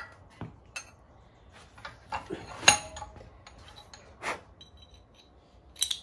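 About six scattered metallic clinks and short scrapes of steel on steel, the loudest about two and a half seconds in with a brief ring. They come from a file and a hand-forged steel bearing screw for a flintlock hammer being worked and handled at a vise.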